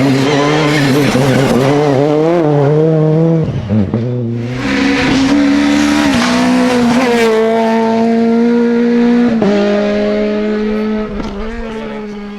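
Rally car engine at high revs, its pitch rising and falling through gear changes. After a short break about four seconds in it is held at a steady high pitch, then drops sharply a little past nine seconds.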